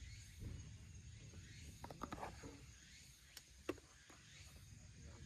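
Near silence: quiet outdoor ambience with a low steady rumble, a faint steady high tone, and a few faint clicks about two and three and a half seconds in.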